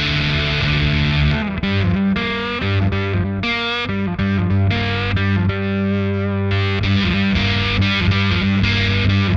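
Humbucker electric guitar played through a Catalinbread NiCompressor compressor pedal into a Catalinbread Dirty Little Secret overdrive and a Fender Deluxe Reissue amp: a distorted riff of picked chords over held low notes.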